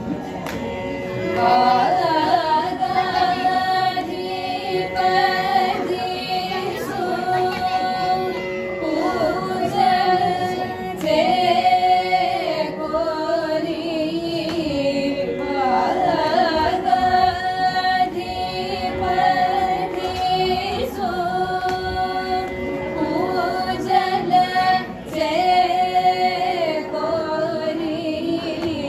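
A group of women singing a Carnatic devotional song together in unison, with long held and ornamented phrases, over a steady drone.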